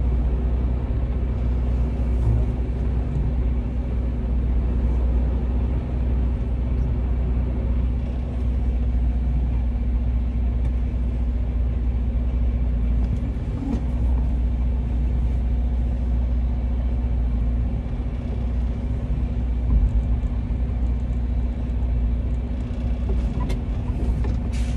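Semi truck's diesel engine running steadily at low speed as the truck is backed into a dock, heard inside the cab as a low drone with a steady hum. There is a single brief thump about twenty seconds in.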